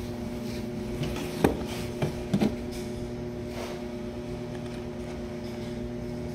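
A few short knocks and clicks, between about one and a half and two and a half seconds in, as a portable welding machine's brass threaded cable connector and plastic housing are handled and fitted together. A steady low hum runs underneath.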